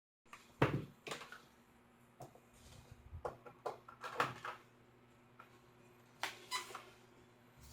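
Scattered clicks and knocks of hands handling plastic TV parts and tools during reassembly, the sharpest knock about half a second in, over a low steady hum.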